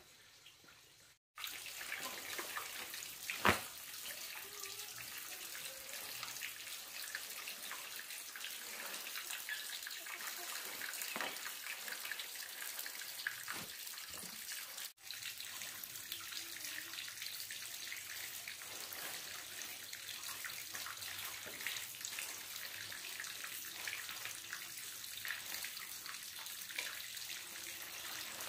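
Water running or pouring steadily, with small splashes and a few light knocks. The sound breaks off for a moment about a second in and again around halfway through.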